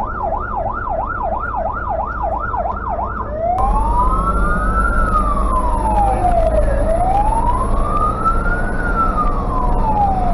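Fire engine's siren heard from inside the cab of a Tatra 148 fire truck: a fast warble of about three sweeps a second that switches, a few seconds in, to a slow wail rising and falling about every four seconds. Underneath, the truck's air-cooled V8 diesel drones steadily, a little louder after the switch.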